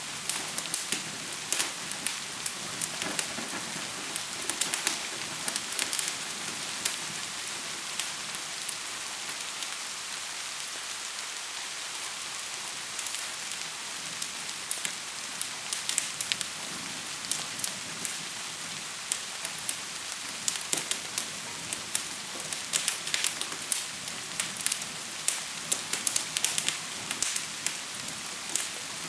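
Gentle rain falling steadily as an even hiss, mixed with the scattered sharp crackles of a fire. The crackles come in clusters and grow busier near the end.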